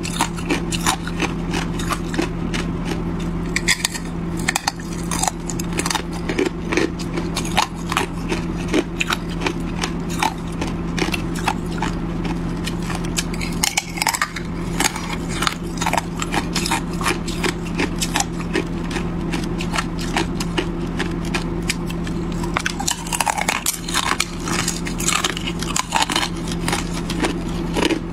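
Thin sheets of ice being bitten and chewed close to the microphone: a dense, continuous run of sharp crackling snaps and crunches. A steady low hum sits underneath.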